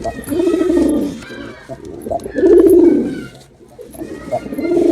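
Male domestic pigeon cooing: three loud, throbbing coos about two seconds apart, each rising and then falling in pitch.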